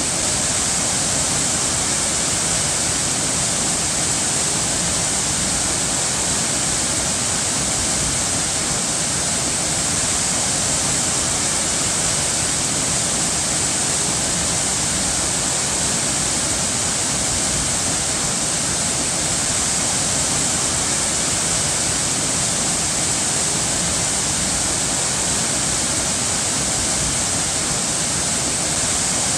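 Running water rushing steadily and evenly, with a bright hiss and no change over the whole stretch.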